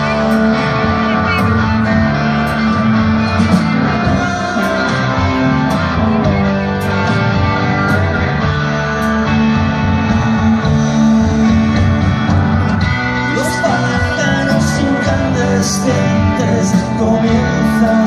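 A rock band playing live, heard from the audience: electric guitars, bass, keyboards and drums with steady cymbal hits.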